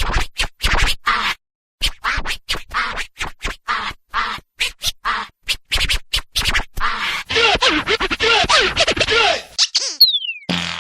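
DJ record scratching: a dense run of short back-and-forth scratch strokes, turning about two-thirds of the way in into quick sweeps up and down in pitch. A brief falling tone comes just before the end.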